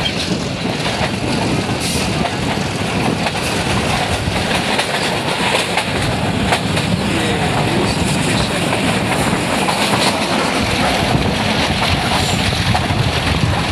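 Passenger train running at speed, heard from inside a coach at an open window: a steady rumble of wheels on the rails with occasional sharp clicks.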